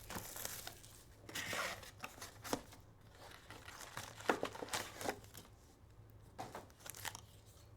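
Trading-card packaging being torn open and handled: plastic wrapper crinkling and tearing in short rustling bursts, with a few small clicks and taps.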